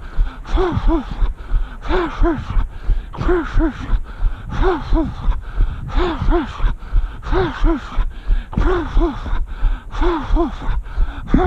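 A runner's heavy breathing in a steady rhythm: a pair of short voiced puffs about every second and a half, with low thumps underneath.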